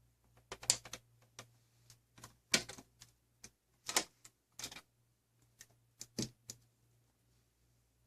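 Irregular sharp clicks and clacks of small hard parts being handled, about a dozen in quick uneven succession, over a faint low hum.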